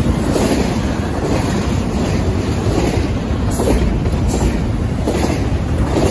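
Union Pacific double-stack intermodal freight train passing close at about 58 mph: a steady rumble of steel wheels on the rails, with repeated clacks about once a second as the wheel sets of the well cars go by.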